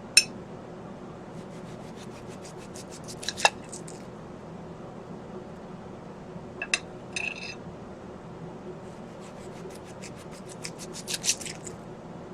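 Knife slicing through an onion, in short runs of quick, crisp cuts separated by pauses.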